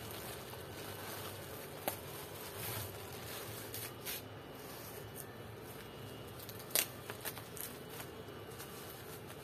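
Black plastic bag being handled and opened, giving a few short crinkles and rustles, the sharpest about two-thirds of the way through, over a faint steady background hiss.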